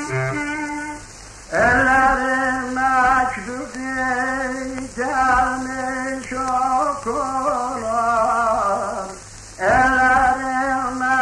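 A man singing a Turkish folk song (türkü) in long, ornamented phrases with a wavering pitch, heard through the surface hiss of a 1937 wax-disc recording. After a brief quieter moment about a second in, one long phrase runs to about nine seconds, and the next starts just before the end.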